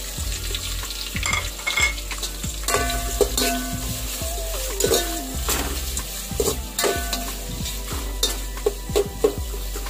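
Sliced onions sizzling in hot oil with whole spices, freshly added to a metal pot. A steel spoon stirs them, scraping and clinking against the pot, with a few squeaky scrapes in the middle.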